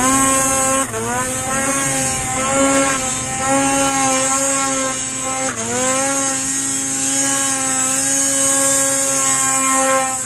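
Supercharged Arctic Cat M8000 snowmobile's 800 two-stroke twin running at high revs under throttle. The pitch holds mostly steady, dropping briefly and climbing back about a second in and again around the middle as the throttle is eased and reapplied.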